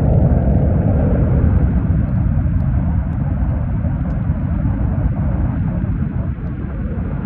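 Erupting volcanic vent spattering lava, heard as a loud, low, continuous rumble that eases slightly about two seconds in.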